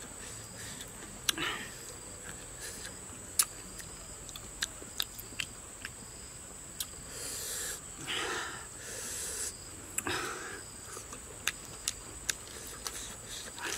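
A man eating raw vegetables: short crisp crunching clicks and mouth sounds while chewing, with several long breathy puffs of breath, the longest around seven to ten seconds in.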